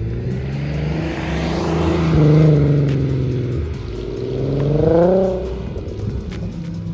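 A swapped-in 3.6 VR6 engine, breathing through custom headers and exhaust, rises in revs and falls back twice, peaking about two and a half and five seconds in.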